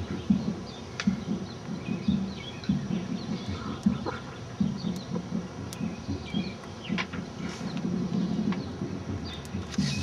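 Outdoor ambience: faint, scattered bird chirps over an irregular low rumble, with a few light clicks.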